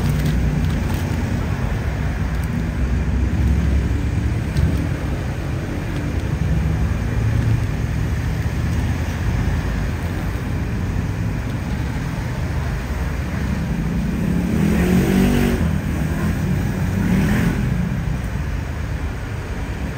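Street traffic running steadily, a low rumble of passing cars and motorbikes, with two louder swells as vehicles go by about three-quarters of the way through.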